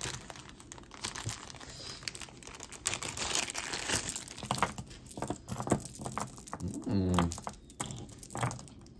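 Crinkling and rustling of packaging as jewelry pieces are unpacked and handled by hand, with small clicks of pieces knocking together. A short murmur of voice comes about seven seconds in.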